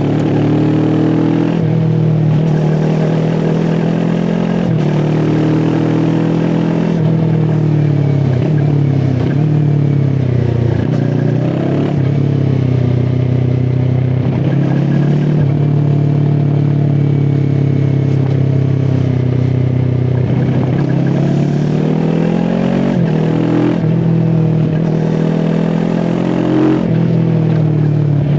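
QJ SRT 450 RX motorcycle engine under way, its note holding steady at cruise, dropping sharply several times as gears shift and rising and falling with the throttle.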